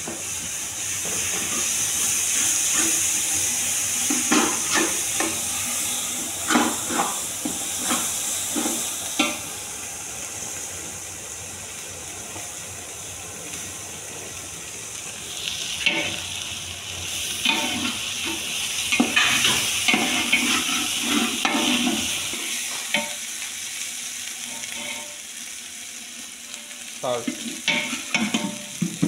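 Sliced onions and ginger paste frying in a large aluminium pot, with a steady sizzle. A metal spatula stirs and scrapes against the pot in repeated strokes, and the scraping comes in a quick cluster near the end.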